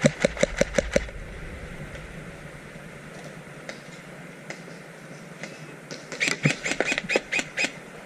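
Airsoft guns firing in two quick strings of sharp shots, about seven a second: one string of about seven shots at the very start, then a longer string of about ten shots starting about six seconds in, with a few faint single shots between.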